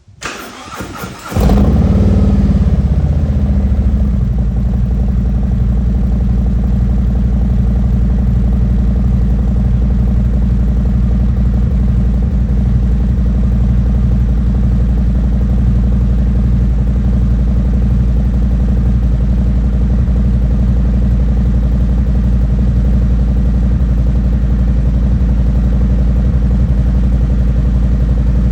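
Harley-Davidson Milwaukee-Eight 114 V-twin, breathing through Khrome Werks 4.5-inch HP+ slip-on mufflers, cranking on the starter for about a second and a half, then catching. It settles from a fast idle into a steady, loud idle.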